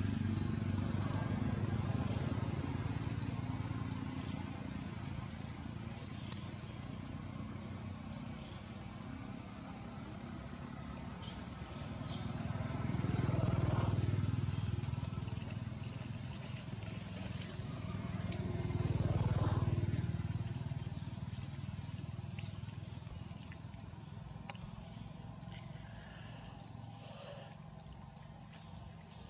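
Steady high-pitched drone of insects, with two motor vehicles passing by, each swelling up and fading away, about 14 and 20 seconds in; an engine rumble dies away over the first few seconds.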